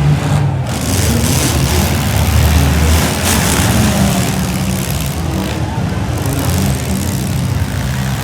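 Several compact demolition-derby cars' engines running and revving hard together, with a steady, loud low rumble.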